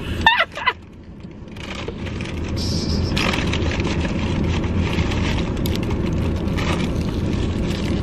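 Steady motor-vehicle rumble with traffic noise, swelling up over the first few seconds and then holding even.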